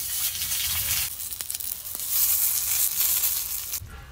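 Banana-leaf-wrapped fish parcels sizzling as they are laid on a hot pan, in two loud spells: one at the start, and a second from about two seconds in that stops shortly before the end.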